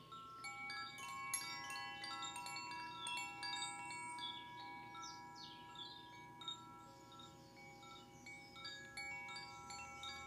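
Wind chimes ringing: many metal tones struck one after another at irregular moments, overlapping and ringing on for several seconds each.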